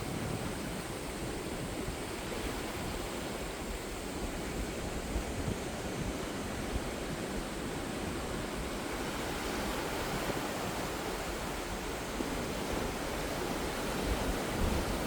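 Ocean surf washing steadily onto the shore, getting a little louder with a few swells near the end.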